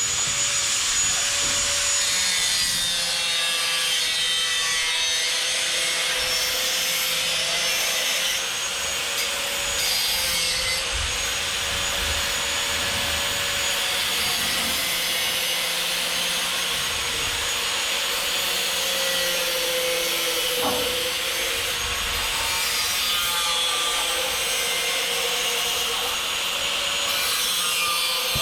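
An angle grinder running continuously as it cuts or grinds steel ceiling framing, its motor pitch dipping slightly under load.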